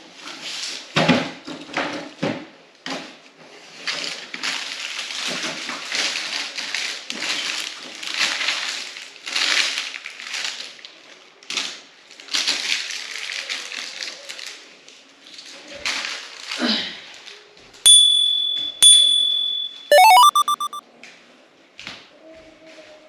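Gift packaging being handled and opened, rustling and crinkling in irregular bursts. Near the end come two short high beeps about a second apart, then a brief rising tone.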